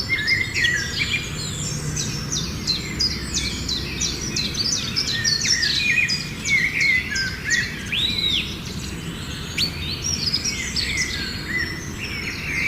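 Many small birds chirping and calling at once, a dense chorus of quick overlapping chirps and whistled sweeps, over a low steady hum.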